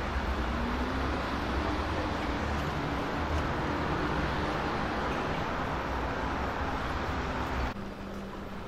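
Steady city street ambience: traffic rumble with a faint low engine hum. It drops abruptly to quieter street noise near the end.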